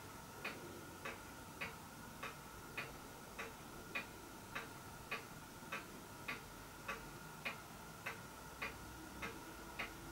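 Faint, steady ticking, a little under two ticks a second, evenly spaced, over a faint steady tone.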